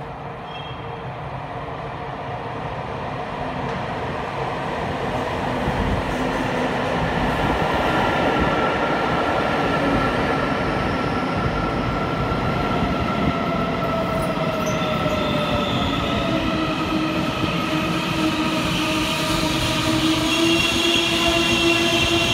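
Taiwan Railways commuter electric multiple-unit train pulling into the station. Its rumble on the rails grows louder over the first several seconds as it approaches. As it slows alongside, whining tones fall in pitch, and squealing tones rise near the end as it comes to a stop.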